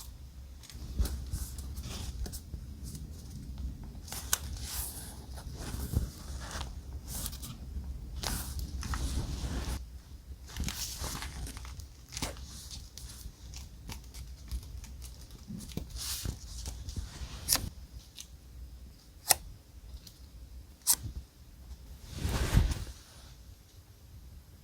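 Close-up paper handling for journal decorating: paper and die-cut pieces rustling, scraping and tearing. In the second half come a few sharp clicks, and a louder rustle follows near the end.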